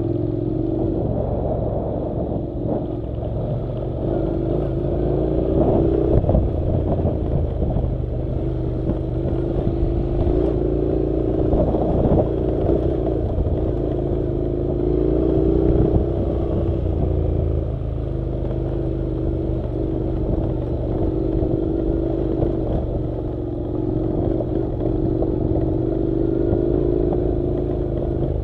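Honda NC700's 670 cc parallel-twin engine running steadily under way, its pitch wavering slightly up and down with the throttle over a low rumble, with a few brief knocks.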